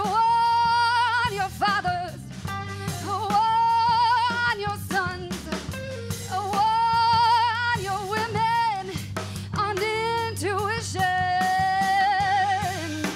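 Live indie rock band playing: a female singer holds long notes with a wide vibrato over electric guitar, bass guitar and drum kit.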